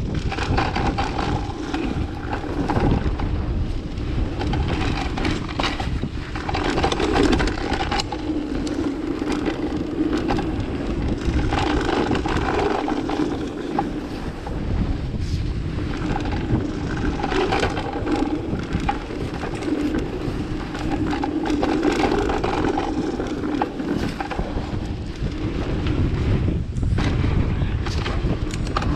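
Mountain bike rolling down a dirt flow trail: a continuous rush of tyres on the ground and wind on the microphone, broken by many small rattles and knocks from the bike.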